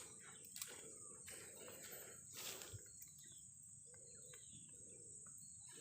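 Near silence: faint outdoor ambience with a steady high insect drone.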